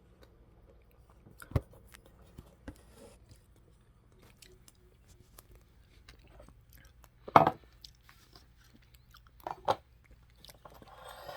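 Kiwi fruit being bitten and chewed close to the microphone: scattered short mouth clicks, with a louder bite or smack about seven seconds in and a couple more near the end.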